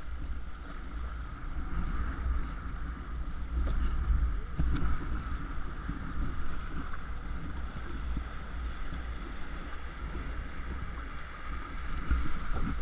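River water rushing and splashing around a moving canoe in riffles, with wind rumbling on the microphone. A couple of brief knocks stand out, one about a third of the way in and one near the end.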